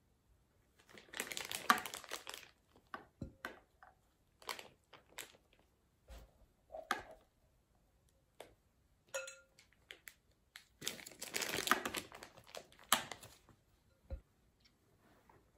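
Plastic piping bag crinkling as it is filled with whipped cream, in two longer rustling stretches with scattered light clicks between.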